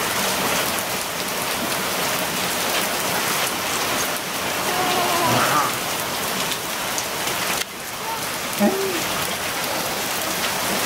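Rainstorm: rain pouring steadily onto a concrete patio and driveway, a dense, even hiss of splashing drops.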